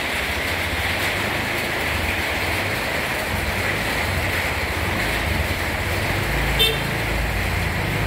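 Steady rain hiss on a paved lane, with a motor scooter's engine drawing near from about five seconds in and a brief horn toot shortly after.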